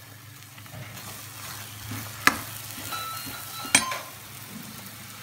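Tomato masala sizzling in ghee in a pan while a steel spatula stirs it. Two sharp knocks of the spatula against the pan come a second and a half apart.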